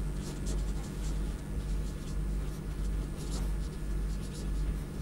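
Handwriting during a lecture: short, irregular scratching strokes of a pen or chalk. A steady low electrical hum runs underneath.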